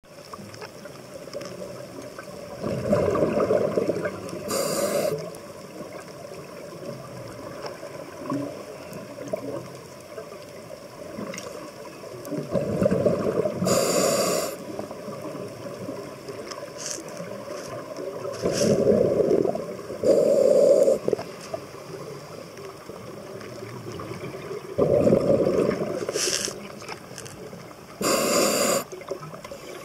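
Scuba diver's breathing through a regulator heard underwater: repeated rushes of exhaled bubbles a few seconds apart, alternating with short hisses of inhaled air.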